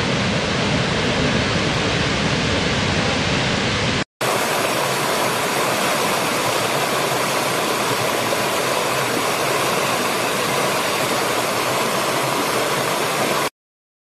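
Steady rush of a large waterfall with a deep rumble under it. About four seconds in it cuts out and is replaced by the brighter, hissier rush of a small stream tumbling over rocks, which stops abruptly shortly before the end.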